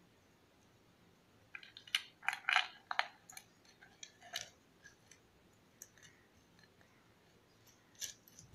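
Faint clicks and light scrapes from handling the metal housing of a loudspeaker driver unit on a workbench, a quick cluster about two seconds in and a few scattered ones later.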